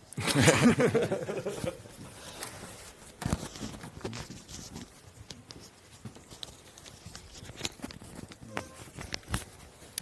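Handling noise during a speaker change-over at the lectern: a loud burst of close rubbing and rustling lasting under two seconds at the start, then scattered clicks and knocks.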